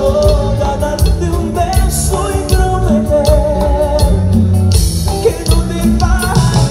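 Live grupera band playing a romantic song: steady drum beat, bass, electric guitar and keyboards under a wavering lead melody, recorded on a phone from within the crowd.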